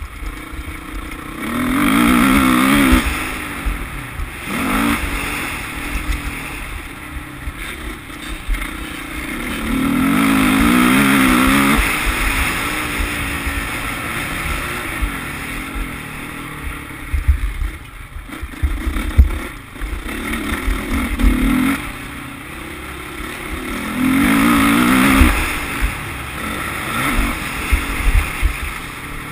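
Motocross bike engine heard from an onboard camera, revving hard in three long surges of acceleration, with quieter part-throttle running between them. Wind rumbles on the microphone under the engine.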